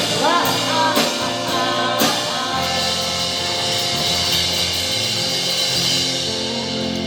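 Live rock band playing between vocal lines: drum hits about once a second with a sung note trailing off at the start, then a held chord with cymbal wash from a few seconds in.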